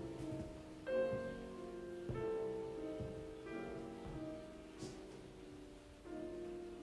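Slow, quiet background piano music: single notes or soft chords struck about every second and a quarter, each left ringing and fading.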